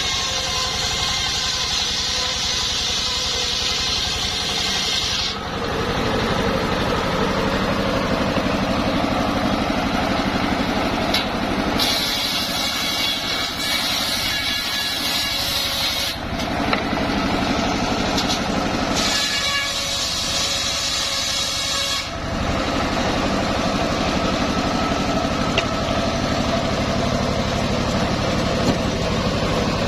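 Homemade engine-driven circular sawmill running steadily, its blade ripping through coconut-palm trunk in three stretches: the first five seconds, a few seconds around twelve seconds in, and again around twenty seconds in, with the engine and spinning blade running on between cuts.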